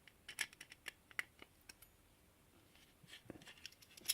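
Faint, scattered clicks and light taps of small hard-drive parts being handled, a few in quick succession at the start and more after about three seconds.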